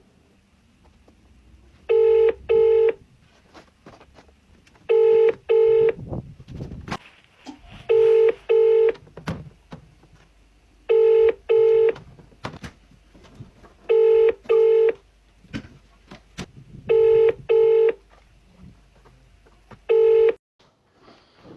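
British telephone ringing tone on an outgoing phone call: a double ring repeating every three seconds while the call waits to be answered. The seventh ring is cut off after its first half.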